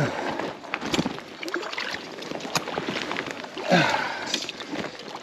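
Water splashing and sloshing around a hooked brown trout as it is brought to hand in a stream, with scattered knocks and rustles of handling.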